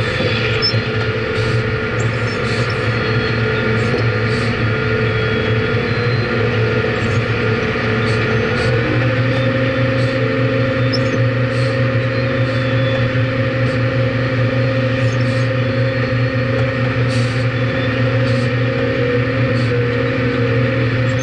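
Cat 615 paddle-wheel scraper working close up: a steady diesel drone with the elevator chain and flights running through gravel, and scattered clanks and rattles from stones and chain. The running steps up slightly in pitch about nine seconds in.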